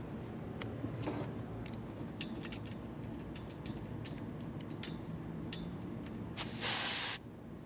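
Small metal clicks and tool handling on an air-conditioning unit, then a short, loud hiss near the end, typical of refrigerant escaping as a gauge hose is coupled to a service port.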